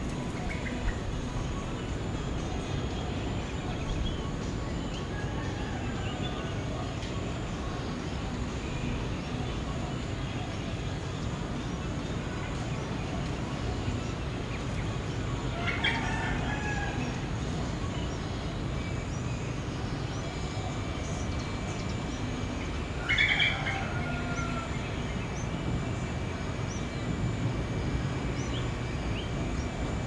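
Birds chirping and calling over a steady low background rumble, with two louder calls, one about halfway through and one about two-thirds through. A thin steady high tone comes in about two-thirds through.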